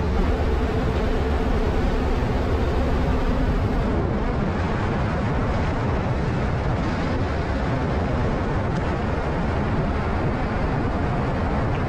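Interior of an MSRTC bus cruising at highway speed: steady engine drone with tyre and wind rush. About four seconds in, the engine's hum drops away and an even road-and-wind rush remains.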